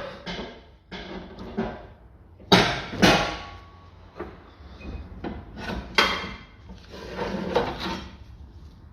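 A series of sharp metal knocks and clanks, several ringing briefly, as parts are worked loose from a car's front suspension, with a rattling scrape near the end.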